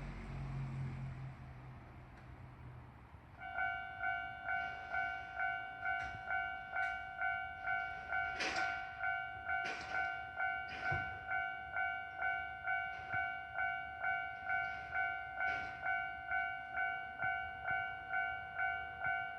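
Japanese level-crossing electronic warning bell starting about three and a half seconds in and ringing a steady pitched ding about twice a second, the signal that the crossing has been activated for an approaching train. Before it, a road vehicle's engine fades away.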